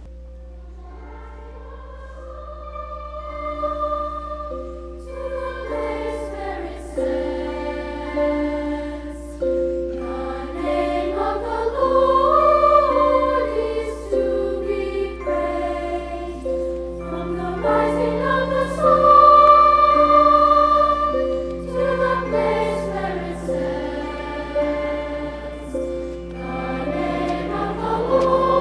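A choir singing a slow sacred piece in several parts, with held notes moving in phrases of a few seconds.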